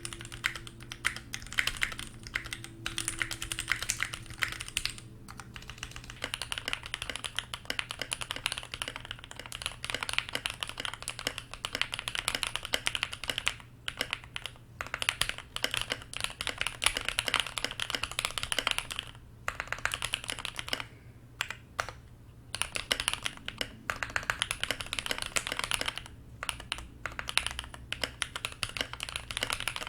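Typing on a Keychron Q1 mechanical keyboard fitted with lubed linear CreamWICKS frankenswitches (JWICK black housings, NK cream stems, KTT three-stage springs), dampened with a tape mod and paper towel in the case. It is a fast, continuous run of keystrokes broken by a few short pauses.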